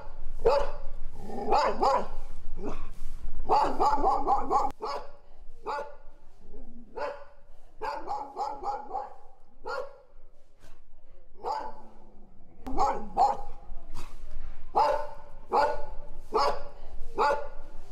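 A dog barking over and over in short barks, often one or two a second, with a quieter spell around the middle.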